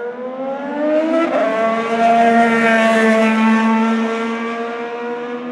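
IndyCar's twin-turbo V6 accelerating with its pitch climbing, shifting up about one and a half seconds in, then holding a steady high note at speed. It is loudest around the middle and fades slowly toward the end.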